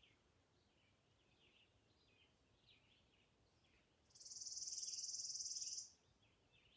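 Faint, scattered bird chirps. About four seconds in, a steady, high-pitched trill starts and runs for about two seconds before stopping, much louder than the chirps.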